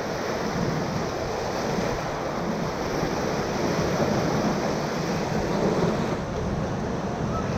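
Whitewater rapids of the Ocoee River rushing steadily around a raft.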